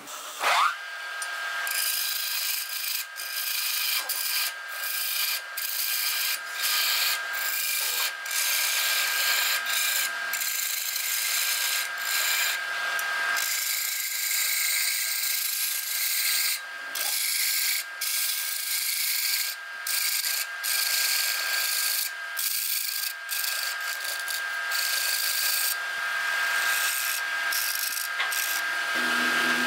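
Wood lathe running with a steady whine while a hand-held chisel cuts the spinning wooden cup blank. The cutting hiss breaks off briefly many times as the tool is eased on and off the wood.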